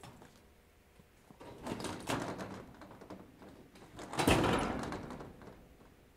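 Steel walk-in door of a metal building: a softer swell of noise about a second and a half in as the door is worked, then the door shuts with a loud bang about four seconds in, the noise trailing off over the next second.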